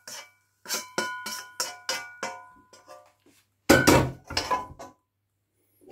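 A spoon scraping and tapping out the inside of a metal wok in a quick run of knocks, the wok ringing after each one. About four seconds in, the wok is set down on the gas hob's grate with a louder clatter.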